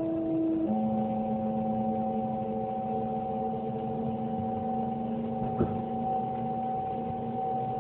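Kintetsu limited express electric train running, heard from inside the car: a steady hum of several tones that steps to new pitches less than a second in. One sharp click comes about two-thirds of the way through.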